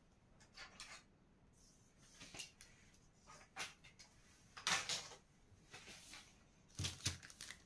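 Faint, scattered handling sounds of a drafting ruler and pattern paper on a work table: a few light taps and rustles, the most distinct near the end as the ruler is set down.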